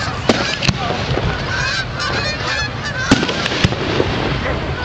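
Aerial fireworks shells bursting overhead in sharp cracks, two early on and a quick cluster of three a little past the three-second mark. Under them runs a continuous chorus of short honking calls.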